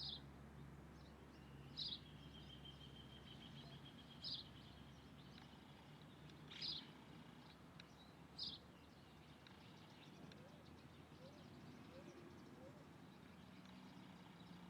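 A bird giving short, high calls, five times about two seconds apart, faint over a low outdoor hiss.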